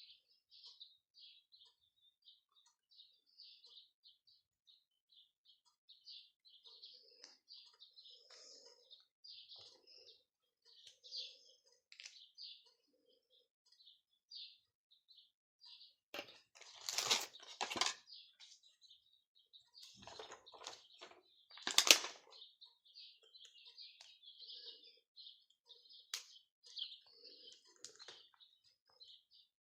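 Small bird chirping rapidly and continuously in short high chirps. Two louder noises cut across it: a longer one a little past the middle and a sharp, louder one about three quarters of the way through.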